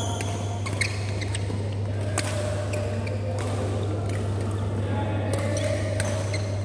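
Badminton rally: sharp racket hits on the shuttlecock, one every second or more, with a few short high shoe squeaks on the court mat near the start, over a steady low hum of a large hall.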